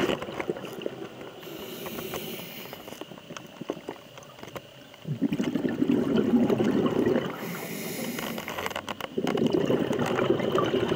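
Scuba diver breathing through a regulator underwater: exhaled bubbles rumble for about two seconds at a time, once about five seconds in and again near the end, with a quieter hiss between breaths.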